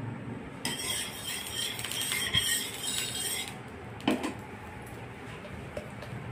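A long steel spatula scraping and clinking against steel for about three seconds as oil is taken up to grease the tawa, then a single knock as it is set back in the steel oil bowl.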